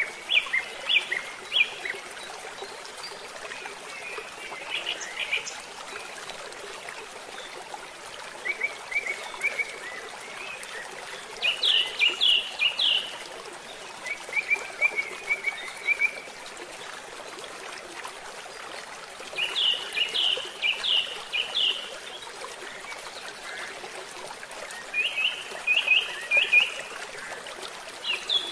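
Small bird singing short phrases of rapid, clipped chirps, repeated every few seconds, over the steady sound of a stream's flowing water.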